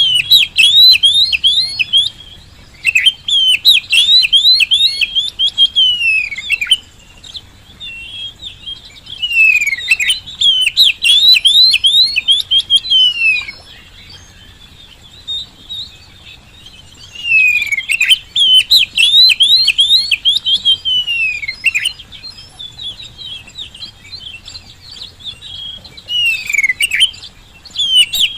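Oriental magpie-robin (kacer) singing loudly: rapid runs of high, quick whistled and down-slurred notes, in phrases of a few seconds each, with short pauses between.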